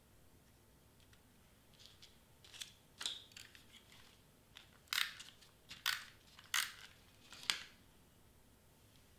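Tombow permanent adhesive tape runner drawn across black cardstock: a few light scrapes and clicks, then four sharper, short zips less than a second apart near the end.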